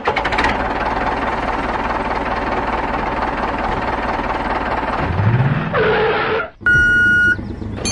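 Steady tractor engine noise for about five seconds, rising in pitch, followed by a short warbling burst. After a brief break, a vehicle reversing alarm gives one steady high beep near the end.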